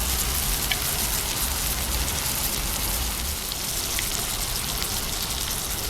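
Steak sizzling as it fries in hot butter in a pan on a camping stove: a steady hiss with a couple of faint crackles.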